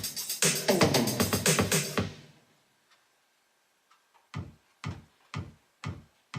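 Electronic pop song played through S90e loudspeakers fitted with Alphard midrange drivers: the beat-driven passage fades out about two seconds in, near silence follows for about two seconds, then single drum beats come about twice a second.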